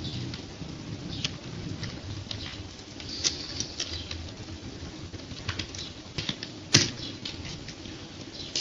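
Typing on a computer keyboard: irregular key clicks, with one sharper, louder click about two-thirds of the way through, over low background noise.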